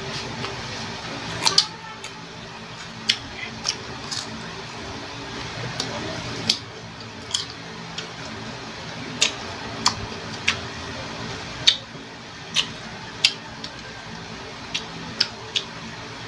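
Crisp bites and chewing of raw green Indian mango slices, heard close up: sharp crunches at irregular intervals, roughly one a second.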